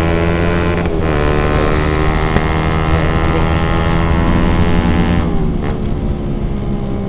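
Motorcycle engine running at steady revs under throttle, with a brief dip in revs about a second in; about five seconds in the throttle eases off and the revs fall.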